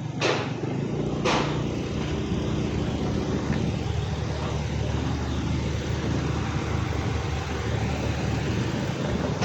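A road vehicle's engine running steadily with road noise, with sharp knocks once shortly after the start and again about a second later.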